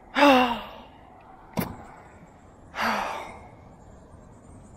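A man's wordless groans of dismay after losing a hooked fish: one falling groan just after the start and another about three seconds in. A single sharp click comes between them.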